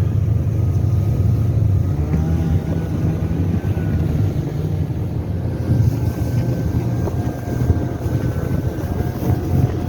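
Snowmobile engine running steadily under way, a continuous low drone with wind buffeting the microphone.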